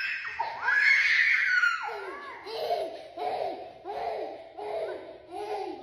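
Laughter: a high, squealing laugh, then a steady run of laughs repeating about twice a second.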